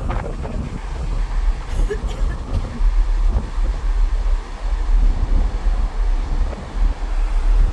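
Sea wind buffeting the microphone in a low, gusting rumble over the wash of the sea.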